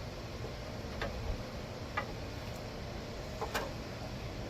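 A few light, irregular clicks and taps of metal as a piece of angle iron is set against a drill, over a low steady background hum; the drill is not running.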